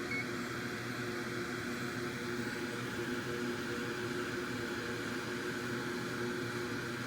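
Hakko FR-810B hot air rework station blowing steadily: an even airflow hiss over a constant fan hum with a few low tones, as it heats solder paste in a BGA stencil to reball a chip.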